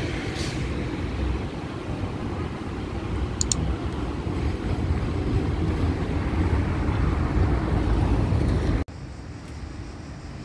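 Street traffic with a tram pulling away from its stop: a steady low rumble of the tram and passing cars. The sound drops suddenly to a quieter street background near the end.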